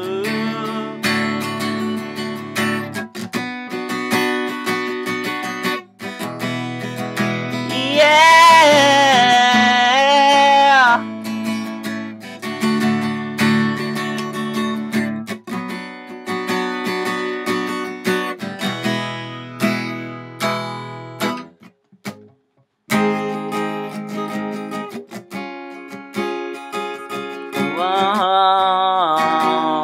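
Solo acoustic guitar strummed, with a wordless sung line about eight seconds in and again near the end. The guitar drops out briefly a little after twenty seconds, then comes back in.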